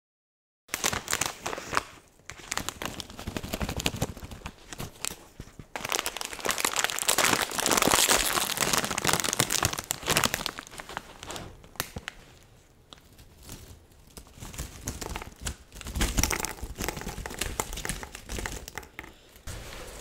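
Plastic snack bag of crunchy corn puffs crinkling and rustling in close-up as hands work it open and handle it, in irregular crackly bursts starting about half a second in.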